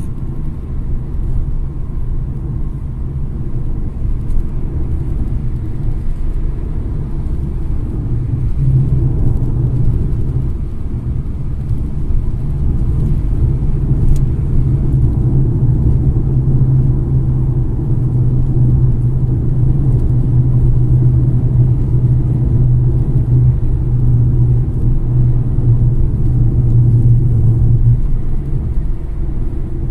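A car travelling at highway speed, heard from inside: a steady low engine and road drone that grows a little louder from about nine seconds in.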